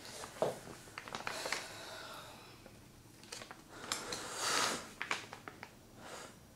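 Quiet room tone with soft sounds of a person moving: a few small clicks and rustles, and a longer breathy rush like a sigh about four and a half seconds in.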